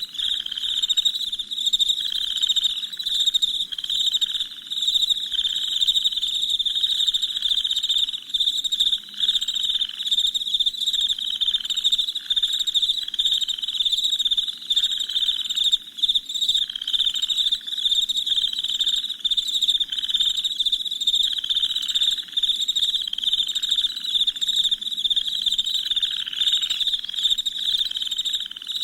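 Night chorus of crickets chirping in a dense, continuous high-pitched trill, with a lower call pulsing about once a second beneath it.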